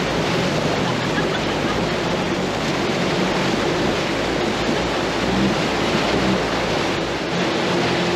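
Water splashing and rushing around the wheels as a Toyota pickup drives through a deep creek crossing, with the truck's engine running low underneath; the engine tone comes through more steadily near the end.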